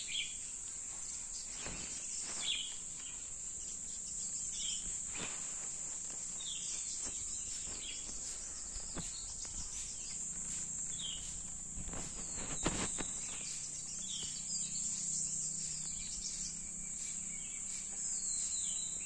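Steady high-pitched drone of insects, with short falling bird chirps every couple of seconds and a few soft knocks, the clearest about two-thirds of the way through.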